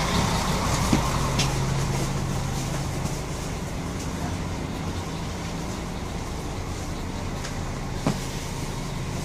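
Diesel railcar engine running with a steady low hum, heard inside the passenger car; the hum eases slightly after about three seconds, and there are a few faint clicks.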